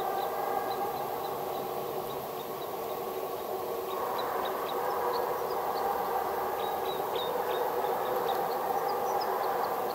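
Russian hounds baying in the distance while running a trail, their voices blending into a continuous, wavering chorus that swells about four seconds in.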